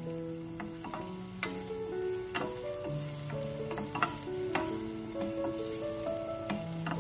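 Chopped garlic and shallot sizzling in oil over low heat in a stainless steel saucepan, stirred with a wooden spoon that knocks against the pan several times. Soft background music with held notes plays underneath.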